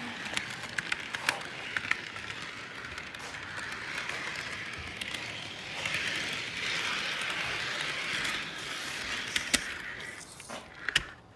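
Model train running along the track with a steady rattling hiss and scattered sharp clicks. Near the end the running noise falls away and a few knocks follow as the train derails.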